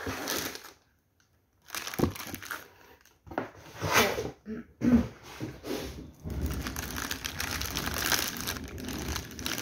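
Cardboard box and paper inserts rustling, with a few knocks, as the packed item is lifted out. Then a clear plastic bag crinkles steadily while it is handled and pulled open. There is a short silent break about a second in.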